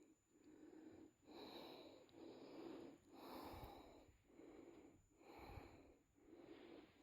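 Faint, even breathing close to the microphone, about one soft breath each second.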